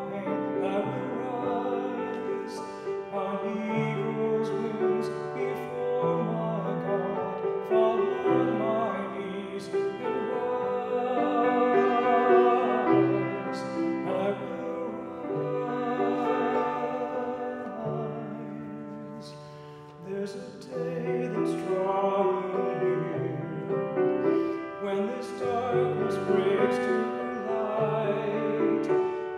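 A man singing a solo with grand piano accompaniment, with a brief lull about twenty seconds in before the song carries on.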